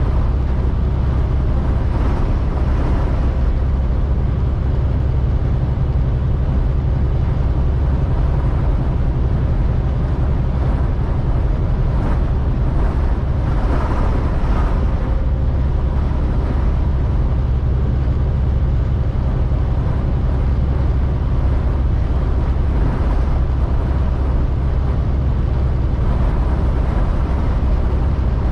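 Semi-truck cab interior while driving: a steady low drone of the engine and road noise, mixed with the noise of strong wind against the lightly loaded truck.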